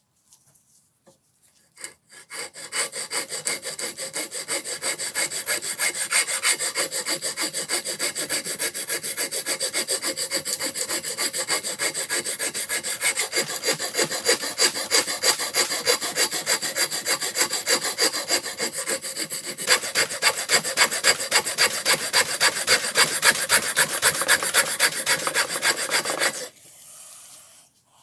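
A freshly restored four-way steel wood rasp being pushed back and forth across a softwood block held in a vise, cutting the wood in quick, even rasping strokes at about three a second. The strokes start about two seconds in and stop shortly before the end.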